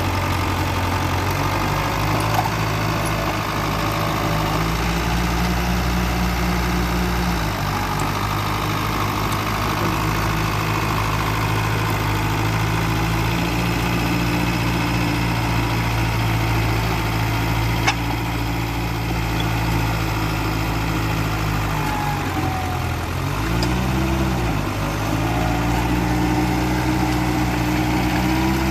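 Mitsubishi BD2E bulldozer's diesel engine running steadily as it works, its pitch stepping down about seven seconds in, then sagging and climbing back about 23 seconds in. A single sharp click about 18 seconds in.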